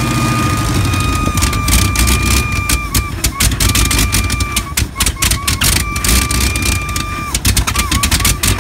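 The V8 of a long-stored 1969 AMC AMX running roughly on one of its first runs back, with irregular sharp pops. A steady high whistle sounds over it, breaking off and coming back several times.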